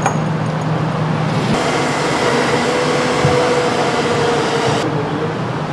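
Electric hoist motor running steadily, lifting an axis deer carcass hung by its hind legs. Its tone changes about a second and a half in, and the higher hiss drops away near the end.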